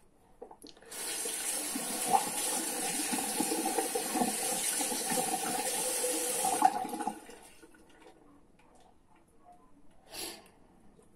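Water running from a sink tap for about six seconds, then shut off. A short burst of noise follows about ten seconds in.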